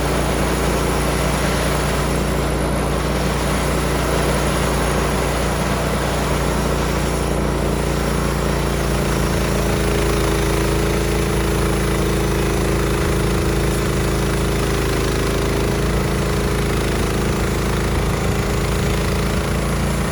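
Small gas engine of a Woodland Mills HM126 portable band sawmill running steadily, with a higher steady tone joining about nine seconds in.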